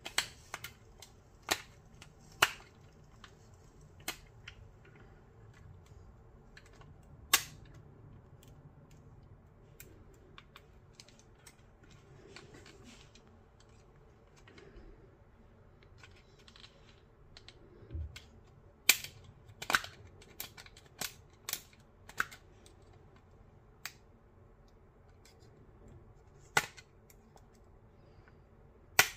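Sharp clicks and taps at irregular intervals, with a quick run of them about two thirds of the way through: a screwdriver and fingers working on the opened plastic housing of a Teufel Bluetooth speaker at its small circuit board.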